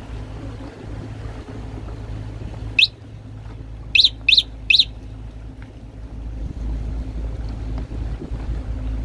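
Gulls roused by a passing boat giving short, sharp, high calls: one about three seconds in, then three in quick succession about a second later. Under them the boat's engine drones steadily, growing louder near the end.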